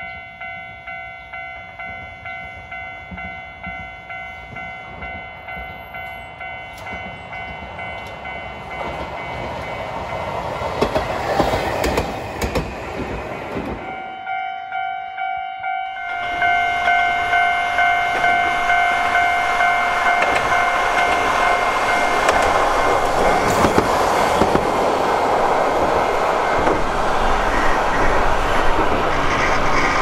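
Japanese level-crossing alarm bells ringing with a steady, even beat while a Hankai tram's wheels rumble louder along the rails as it approaches and passes. About halfway the sound cuts out briefly, then a second crossing bell rings louder over another tram drawing near.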